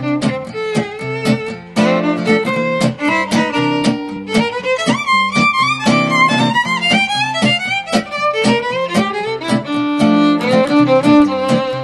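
Instrumental break of a folk string-band song: a fiddle plays a sliding melody over steadily strummed chords.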